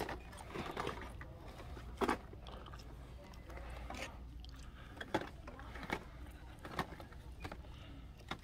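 Boxed action figures in plastic-windowed cardboard packages being handled on a pegboard: irregular light clacks and taps, roughly one a second, over a steady low hum.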